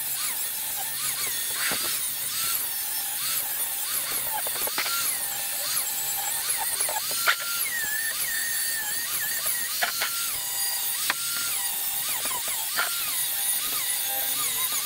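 Angle grinder cutting weld-prep grooves along the edges of steel plates, a steady grinding hiss. The motor's whine dips each time the disc is pressed into the steel and recovers as it eases off, over and over.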